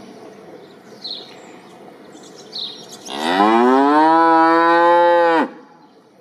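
Domestic water buffalo lowing: one long call about three seconds in, rising in pitch at first and then held for about two seconds before it cuts off sharply.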